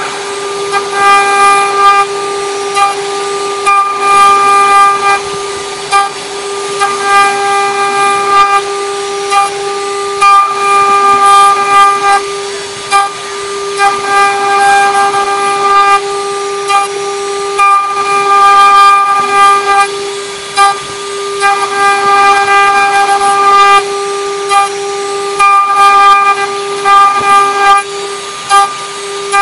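CNC engraving machine's spindle running with a steady whine while its end mill cuts copper, a higher ringing tone from the cutter coming and going every second or two as it bites into the metal.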